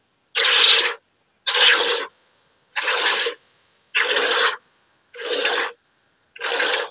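Jets of milk squirting into a milking can as a cow is milked by hand: six even strokes about a second apart, each a short hiss.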